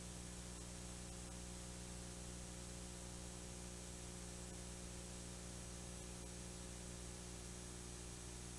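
Faint, steady electrical hum with hiss, the recording's background noise, with no music or other events.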